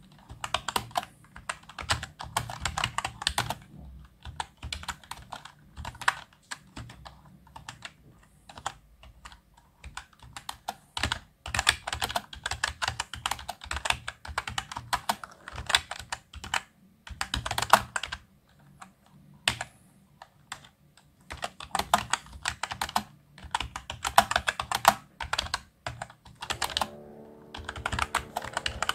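Touch typing on a computer keyboard: quick runs of key clicks broken by short pauses.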